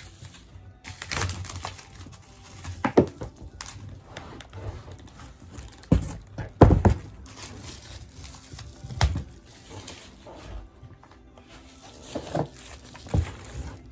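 Scattered knocks and thumps of a balance bike and its parts being handled and set down, about six, the loudest a pair around the middle, over faint background music.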